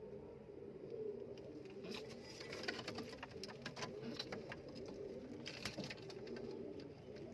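Domestic pigeons cooing in a continuous low murmur, with a scatter of sharp light clicks and taps from about two seconds in until near six seconds.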